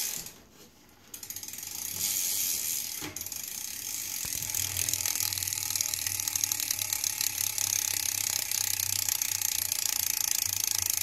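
Rear freewheel hub of a 2015 Subrosa Tiro BMX bike ticking fast and steadily as the wheel spins freely, pretty loud. A single click comes at the start, and the ticking builds in over the first couple of seconds.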